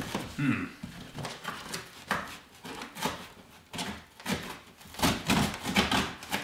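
A dull scalpel blade scraping and sawing at packing tape and cardboard, with irregular scratches, knocks and cardboard rustling as the box flaps are worked. The blade is too blunt to cut the tape cleanly.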